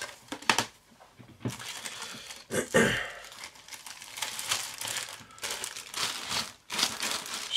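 Clear plastic bag crinkling and rustling as a plastic model-kit sprue is slid into it, in irregular bursts with a few light knocks.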